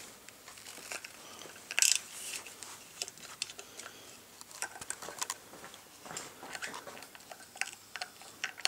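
Light clicks and taps of small parts being handled as the stone's screw is fitted back into a Wintersteiger Discman ski edge sharpener, with one brief louder scrape about two seconds in.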